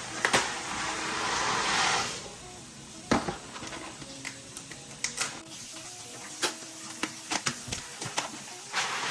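Kitchen work at the stove: a hiss lasting about two seconds near the start, then scattered clinks and knocks of pots, lids and utensils.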